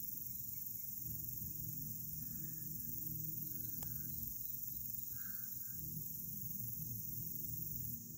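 Quiet outdoor ambience: a steady low hum with a few faint short insect chirps every second or so, and a single small click about four seconds in.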